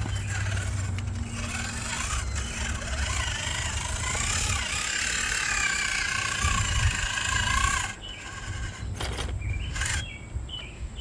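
RC rock crawler's small electric motor and geared drivetrain whining as the truck crawls, the pitch rising and falling with the throttle. It stops about eight seconds in.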